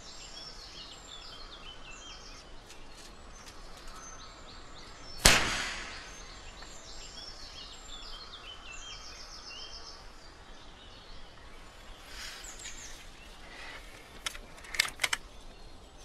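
A single air rifle shot about five seconds in, dispatching a trapped grey squirrel, over steady woodland birdsong; a few light clicks follow near the end.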